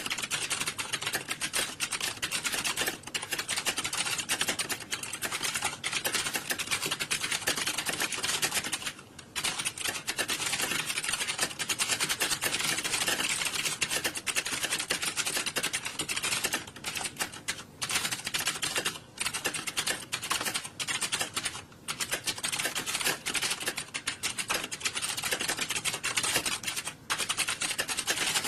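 Computer keyboards being typed on, a dense, continuous clatter of key clicks with a few brief lulls, about nine seconds in and several times later, as of many people typing at once in an exam hall.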